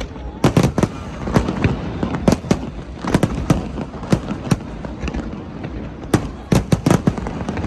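Fireworks display bursting in rapid, irregular bangs, several a second at times, coming in clusters with short lulls between.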